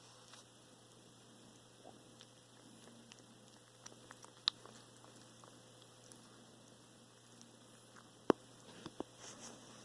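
Russian blue cat chewing food: scattered sharp clicks and crunches, the loudest about eight seconds in, over a faint steady hum. These are the odd chewing noises that persist after a dental cleaning, in a cat that eats too little.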